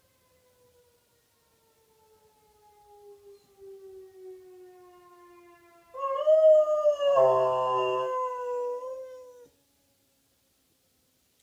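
Pet dog howling, one long howl of about three and a half seconds that starts about six seconds in, rising and then falling in pitch, in answer to a siren. Before and under the start of the howl a faint siren winds down with a slowly falling pitch.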